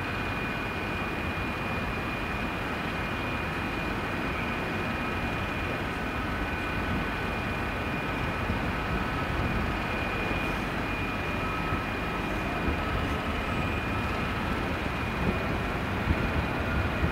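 Class 66 diesel freight locomotive approaching slowly, its engine running steadily as a low rumble with a constant high-pitched whine over it.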